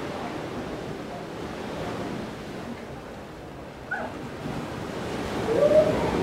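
Sea waves washing steadily, with some wind on the microphone. A short high chirp comes about four seconds in, and near the end a brief pitched sound rises and falls above the surf, the loudest moment.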